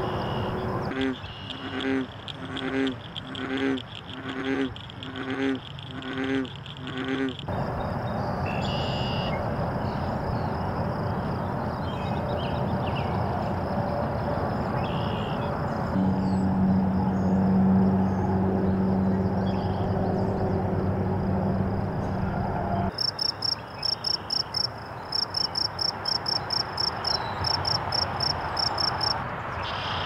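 A frog croaking in a slow series of about eight low calls, evenly spaced. Then steady outdoor background with scattered bird chirps and a steady low hum in the middle. Near the end a bird repeats a rapid high note several times a second.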